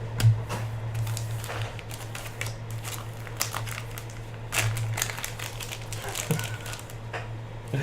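Card box packaging being opened and handled: irregular crinkling and small clicks of cardboard and plastic wrap, over a steady low electrical hum.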